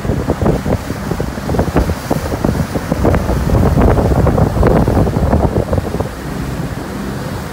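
Wind buffeting the microphone aboard a moving boat, a loud, gusty rumble over the rush of harbour water.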